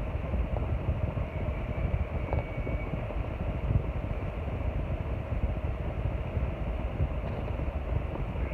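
Arno Ultra Silence Force electric fan running steadily: a constant rush of moving air with a fluttering low rumble.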